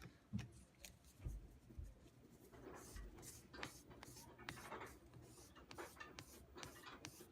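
Fine 2000-grit wet-dry sandpaper rubbed in repeated strokes along the steel blade of a flat-bevel carving knife held steady, a faint scratching as the edge is honed.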